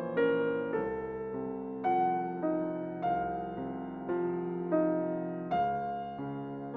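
Background music: a soft piano melody, notes struck one after another and left to ring.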